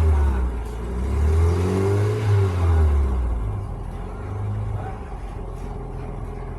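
1984 Toyota Corolla GL's original 2A four-cylinder engine being revved once, its pitch rising and falling about two seconds in. It then settles to a quieter, steady idle.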